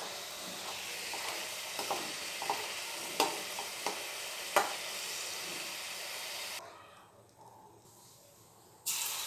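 Chegodi (rice-flour dough rings) deep-frying in hot oil with a steady sizzle, and a few sharp knocks of a slotted spoon against the pan, about two, three and four and a half seconds in. About two-thirds of the way through the sizzle stops suddenly and falls to near quiet, then a short burst of sizzle comes back just before the end.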